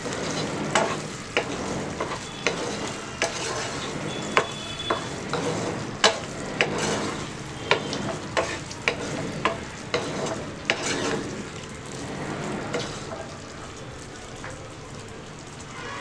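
Wooden spatula stirring fig pieces in bubbling sugar syrup in a nonstick frying pan: frequent light knocks and scrapes against the pan over a steady sizzle. The stirring stops about three-quarters of the way through, leaving the syrup sizzling on its own.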